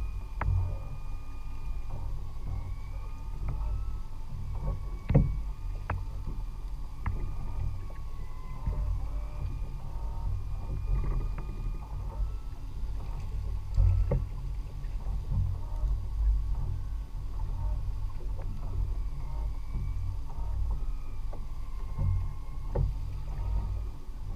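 Small fishing boat at sea: a steady low rumble of wind and water around the hull, with scattered sharp knocks, the loudest about five seconds in and again near fourteen seconds.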